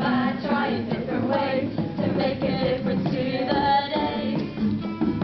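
A live amateur song: several voices singing together, with two acoustic guitars playing along.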